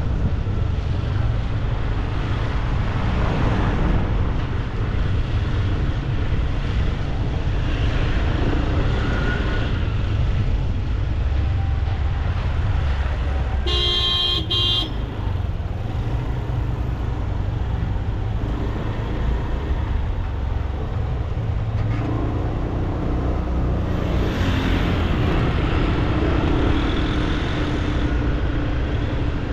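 Steady low rumble of road traffic heard while moving along the road, with a vehicle horn giving two short toots, the first a bit longer, about halfway through.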